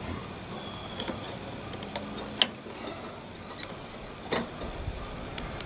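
A few sharp, irregular clicks and knocks of small plastic and metal parts being handled, as a locking wire connector is worked off a microwave oven's micro switch.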